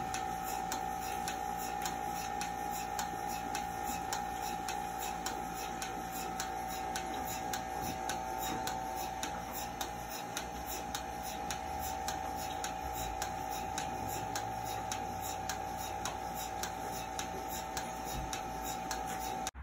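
Bucket milking machine running: the pulsator clicks in a fast, even rhythm, a few clicks a second, over a steady hum from the vacuum system.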